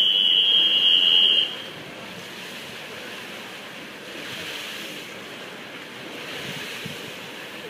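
Referee's whistle blown in one long, steady blast lasting under two seconds. It is the signal for the backstroke swimmers in the water to take their starting position at the wall. A steady poolside background hush follows.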